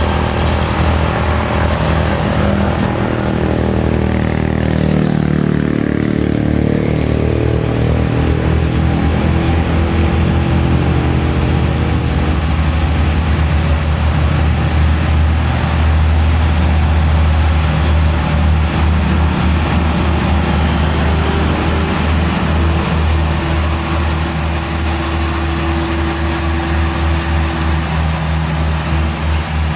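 Hino 500 dump truck's diesel engine running steadily and loudly as the truck drives past.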